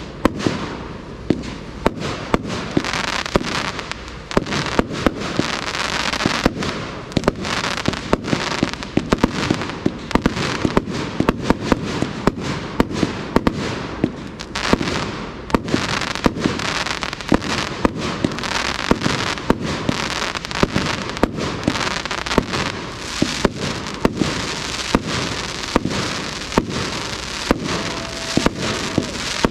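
A 200-shot RKM Fireworks compound cake firing: a fast, uneven run of sharp shot reports and aerial breaks, several a second, over a continuous rushing hiss.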